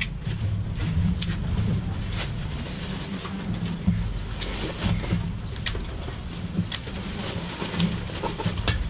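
Scattered clicks and knocks of food-stall work, such as utensils, containers and bags being handled, over a steady low background rumble.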